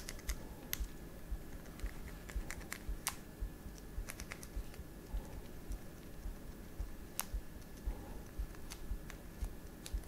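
Faint, irregular little clicks and scratches of a plastic cable tie being poked and flicked inside a Nokia 8's USB-C charging port to dig out lint and debris.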